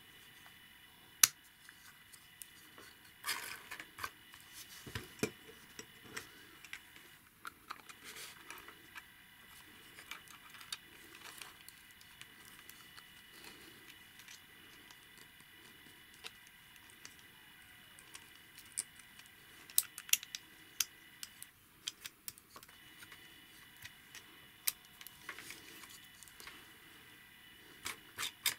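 Light clicks and taps of 3D-printed plastic model-engine parts being handled and fitted together by hand, with one sharper click about a second in and a quick run of clicks near the end.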